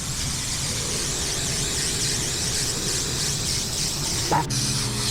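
Aerosol can of spray contact adhesive hissing steadily as it coats a foam insulation panel. A brief rising squeak comes near the end.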